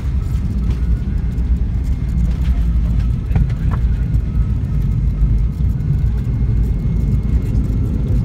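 Steady low rumble in the cabin of a McDonnell Douglas MD-88 airliner rolling along the runway after landing.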